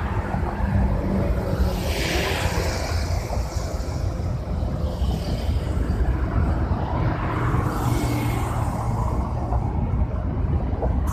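Road traffic: cars passing at speed, with swells of tyre and engine noise about two seconds in and again near eight seconds, over a steady low rumble.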